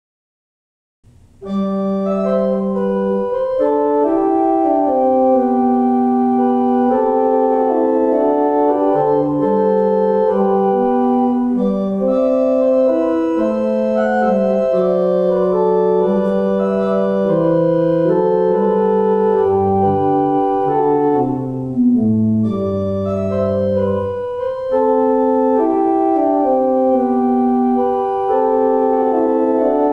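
Organ playing slow, sustained chords over a moving bass line, starting about a second in.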